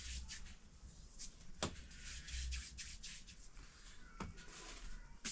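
Hands rubbing and rolling bread dough on a floured cloth, a soft repeated brushing, with a sharp knock about a second and a half in and another near the end.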